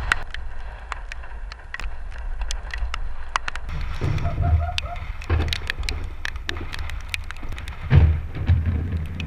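Rain falling in large scattered drops, each striking with a sharp tap, over a steady low rumble with stronger swells about four and eight seconds in.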